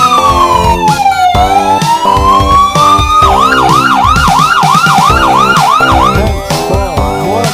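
Ambulance siren sound effect: a slow wail that falls and rises again, switching about three seconds in to a fast yelp of about four swoops a second, over background music with a steady beat.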